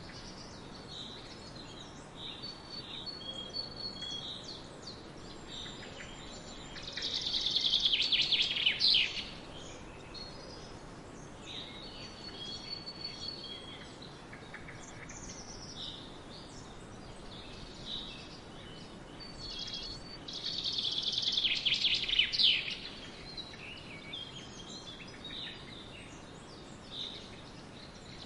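Songbirds singing, with short whistled notes over a steady background hiss. Two louder phrases of rapid trilling come about seven seconds in and again about twenty seconds in.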